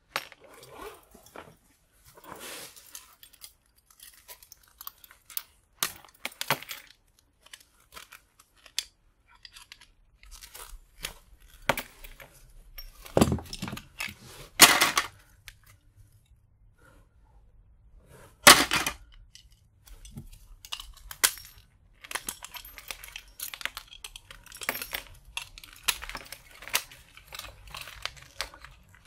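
A crushed plastic circuit breaker being pried and pulled apart by hand and with tools: cracking and tearing plastic, with small metal parts clicking and clinking. Three sharp knocks stand out about halfway through.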